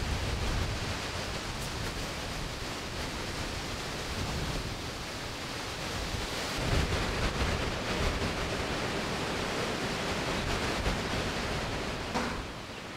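Steady rushing wind noise on the microphone, with gusty low buffeting in the first few seconds; it drops away sharply near the end.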